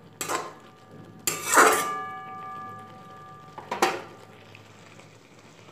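Metal spatula knocking against a metal kadai three times. The second knock, about one and a half seconds in, is the loudest and leaves the pan ringing for about two seconds.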